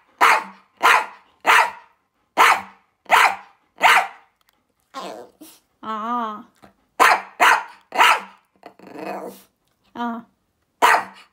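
Small toy poodle barking in a run of short single barks, about one to two a second, with a drawn-out wavering whine about six seconds in before the barking resumes.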